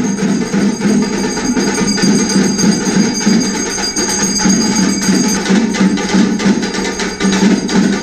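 Fast, loud percussion music of many quick, evenly spaced drum strokes with jingling metal, with a high steady ringing over it that stops about five seconds in.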